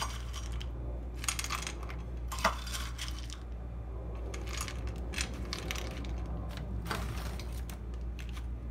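Japanese-style coated peanuts being dropped and set by hand onto a plate: a run of small, irregular clicks and rattles, the sharpest about two and a half seconds in, over a steady low hum.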